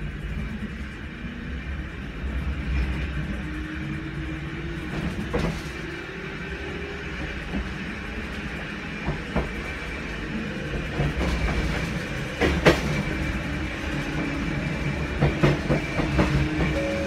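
Fukui Railway 200 series tram running on street track, heard from inside the car: a steady low rumble of the running gear, with a faint whine rising in pitch a few seconds in, and sharp clicks and knocks of the wheels over the rail, the loudest about twelve seconds in.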